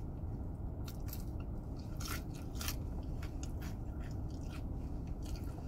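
A person chewing McDonald's French fries close to the microphone: soft wet chewing with a few short crunches, the two sharpest a little after two seconds in. A steady low hum lies underneath.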